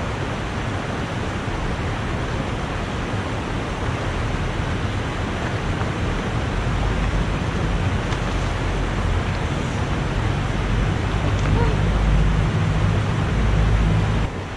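Steady rush of a shallow river running fast over rocks, with a low rumble that grows stronger in the second half.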